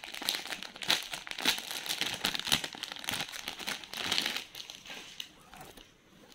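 Clear plastic and paper packaging crinkling and rustling in the hands as a necklace is unwrapped from it, in irregular bursts that fade out near the end.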